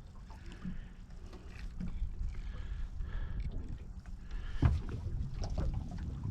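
Low steady rumble of wind on the microphone, with small scattered handling and tackle noises while a hooked bream is being brought in, and one sharp knock a little past halfway.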